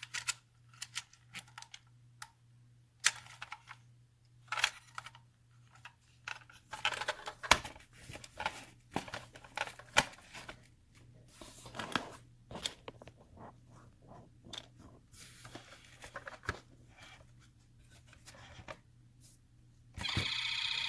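Plastic clicks, taps and scrapes from handling a toy ambulance, working at its parts. Near the end the toy's battery-powered electronic siren sound switches on through its small speaker and keeps going steadily.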